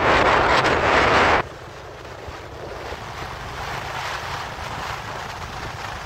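Moving vehicle's engine hum and road noise, with wind rushing over the microphone. A loud rushing noise cuts off abruptly about a second and a half in, leaving a quieter steady rumble.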